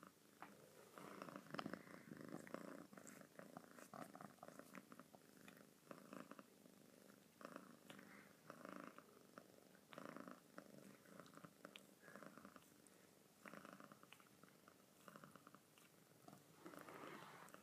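Domestic cat purring softly in a steady rhythm, in pulses a little more than once a second.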